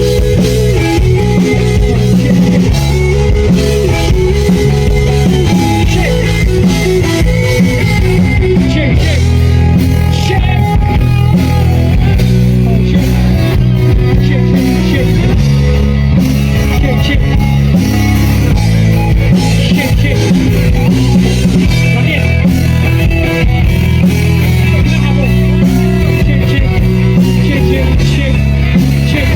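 Rock band playing loud and without a break at a sound check, guitar over a heavy bass end.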